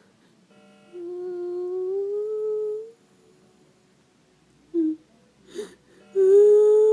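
A person humming two long notes, each about two seconds long and rising slightly in pitch, with two short squeaky sounds between them.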